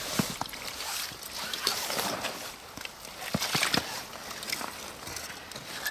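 Hands sorting through soil, a rustling scrape with scattered small clicks and knocks.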